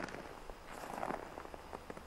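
Footsteps crunching on packed snow: a few short crackly steps, thickest about halfway through.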